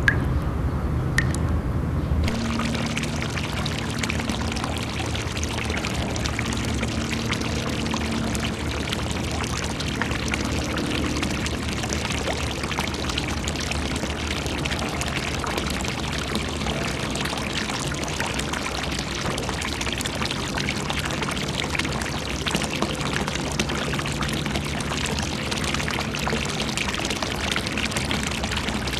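Water pouring and splashing steadily, coming in about two seconds in after a low rumble.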